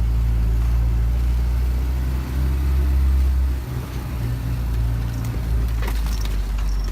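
UAZ off-road vehicle's engine running steadily, dipping briefly in level about three and a half seconds in. A short sharp knock comes near the end.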